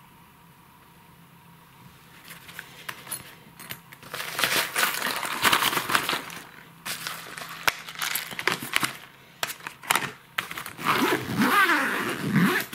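Fishing bag fabric rustling and crinkling as a clear plastic lure box is slid into the bag's side pocket, with a few light knocks of the box. The handling starts about two seconds in and gets louder and more scraping near the end.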